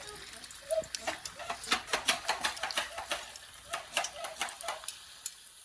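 Deep hot oil crackling and popping as a dough-covered stainless steel bowl fries in it, a dense irregular spatter that thins out near the end.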